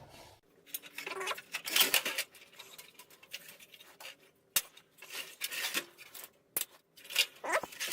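Intermittent clicks, scrapes and rustles of hands handling wires and metal parts inside an opened CRT television, with a few sharp ticks.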